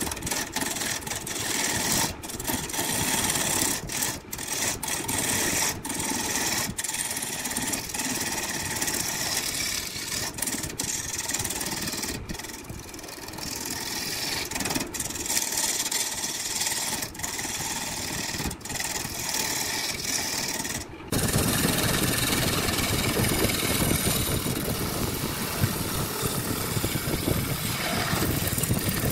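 Workshop power machinery running with a steady motor noise, broken by many abrupt short cuts. About 21 seconds in it switches suddenly to a louder, deeper-running machine.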